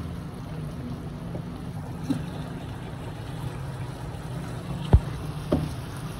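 Diced chicken frying in a non-stick pan, stirred with a silicone spatula, over a steady low rumble. There are a few sharp knocks of the spatula against the pan, the loudest about five seconds in.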